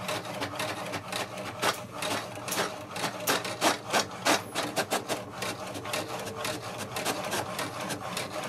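HP DeskJet 2655 inkjet printer printing a page: a dense, irregular run of clicks and rasps from the print carriage and paper feed over a steady motor hum, as the sheet is fed out.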